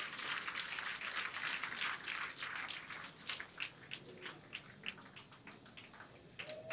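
A crowd applauding, the clapping thinning out into scattered individual claps and fading away. Right at the end, crowd cheering starts to swell.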